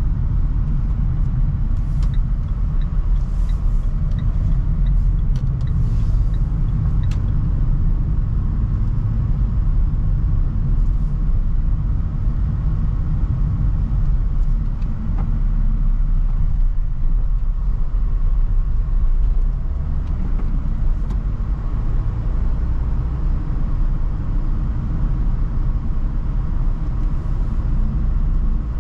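Renault Trafic van driving along: steady low engine and road rumble, with a few light clicks in the first several seconds.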